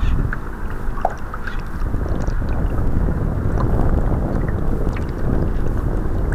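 Wind buffeting the microphone of a camera mounted on a radio-controlled model sailboat under sail, with water splashing against the hull as small ticks.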